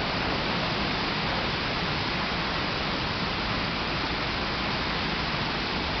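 Steady rushing and splashing of fountain water, an even noise with no breaks.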